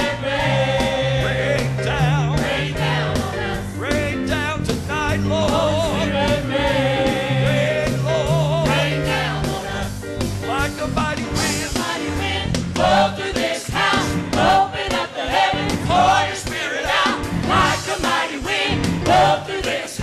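Live gospel choir music: singing voices with a wide vibrato over held low notes, with a sharper, steady beat coming in about twelve seconds in.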